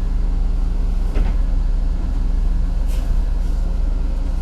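City bus running along the street, heard from inside the cabin: a steady low rumble with a constant hum. A short knock about a second in and a brief click a couple of seconds later.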